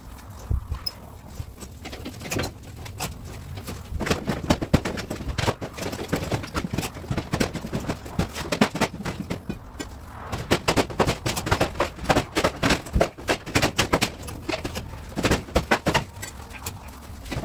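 Corrugated metal wall sheeting clattering and banging as it is worked loose with a hand tool: rapid, irregular metallic knocks, several a second, in two long spells with a short lull about ten seconds in.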